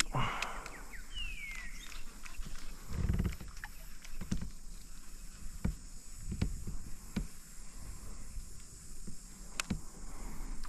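Scattered low thumps and sharp knocks over a faint steady hiss, with a short falling whistle about a second in.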